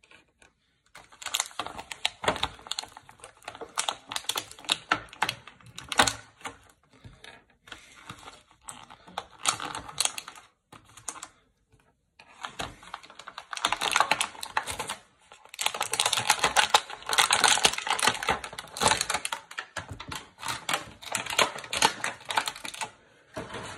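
Action-figure packaging of plastic and cardboard being handled and pulled apart as the figure is freed from its box: dense rapid clicking and crackling in several stretches with short pauses.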